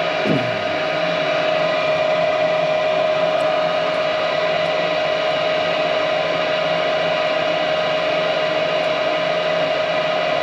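Gas furnace fan motor running steadily: an even whooshing hum with one constant mid-pitched tone over it.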